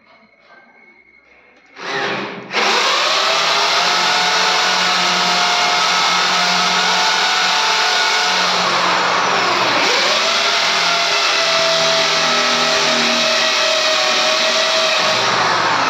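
Corded electric drill boring into a plastered wall to take wall plugs. A short start about two seconds in, then a steady, loud run with several pitches. The drill dips in pitch and picks up again about ten seconds in, and it begins to wind down at the very end.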